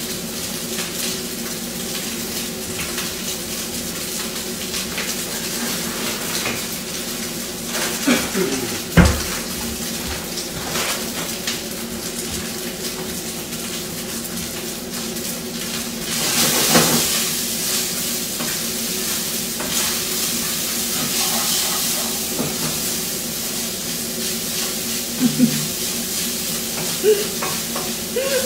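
A cat lapping water from a metal bowl: a long run of quick small wet clicks over a steady hiss, with a brief pause partway through and a louder noisy patch about sixteen seconds in.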